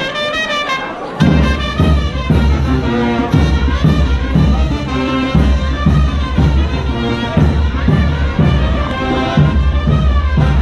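Brass band playing chinelo dance music for the brinco, with a brass melody over it. The deep bass and drum beat come in about a second in and then keep a steady rhythm.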